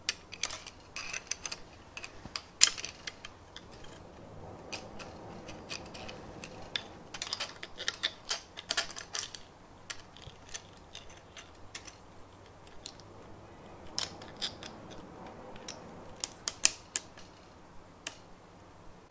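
Irregular small clicks and clatters of hard plastic: a 3D-printed bracket being handled and fitted onto a stepper motor. There are several louder clicks, one about two and a half seconds in and another near the end.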